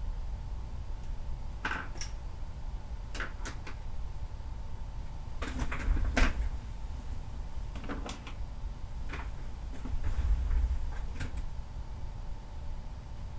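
Several sharp clicks and knocks, scattered a second or more apart, over a steady low rumble that swells twice.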